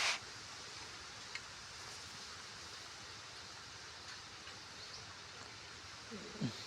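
Steady outdoor background hiss, with a brief rustle right at the start, a single click about a second and a half in, and a short falling tone near the end.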